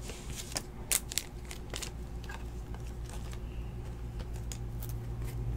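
Basketball trading cards being handled and flipped through by hand: scattered light clicks and soft rustling, busiest in the first two seconds, over a steady low hum.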